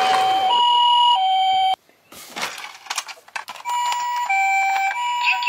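Toy ambulance's electronic two-tone hi-lo siren, the Japanese 'pee-po' ambulance pattern, alternating steadily between a higher and a lower note about every half second. It cuts off abruptly a little under two seconds in. A few clicks and rustles of the toy being handled follow, and the siren starts again near the end.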